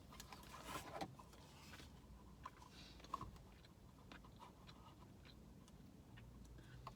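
A crisp bite into a fried crab rangoon (cream cheese wonton), then faint chewing with small crunches and mouth clicks.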